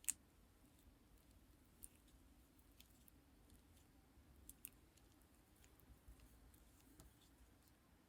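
Faint, scattered sharp clicks and sticky taps from lipstick being handled and worked, one louder click right at the start and a quick pair about halfway through.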